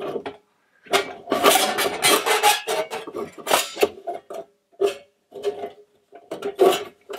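Stainless-steel plates of a Skotti flat-pack portable gas grill clattering and clinking against each other as they are fitted together. A dense run of rattling in the first few seconds, then a few separate knocks.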